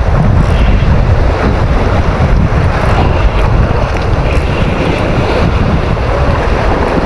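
Strong wind buffeting the microphone, with the steady wash of the sea beneath it.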